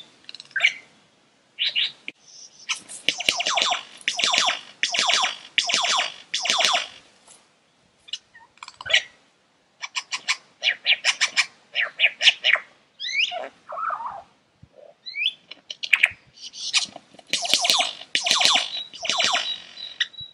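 Male superb lyrebird singing in courtship display: loud bouts of rapid, rattling, clicky notes and sharp whistles, broken by short pauses, with a steady high whistle held near the end.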